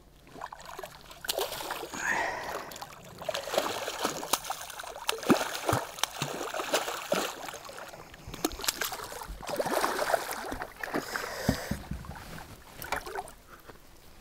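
A hooked lake trout thrashing at the surface beside the boat, throwing irregular splashes of water that die down near the end.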